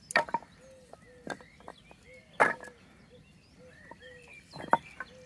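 Wooden offcuts from an old bed clacking against each other as they are stacked onto a fire, several sharp knocks with the loudest about halfway through.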